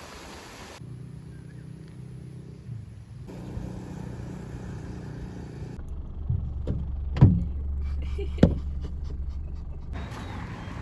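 A road vehicle running, its steady low engine and road hum heard across several short edited clips. Two sharp knocks sound in the last clip, a little over a second apart.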